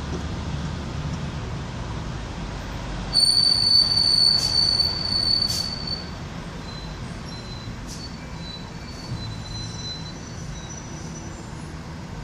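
Subway train wheels squealing on the rails over a steady low rumble. A loud, high, steady squeal starts about three seconds in and holds for about two and a half seconds, with a few sharp clicks. Fainter, shorter squeals follow.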